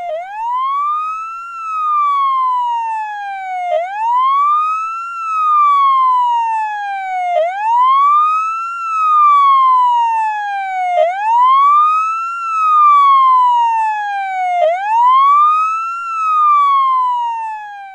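Police car siren wailing: each cycle rises quickly in pitch and then falls slowly, repeating about every three and a half seconds, five times over.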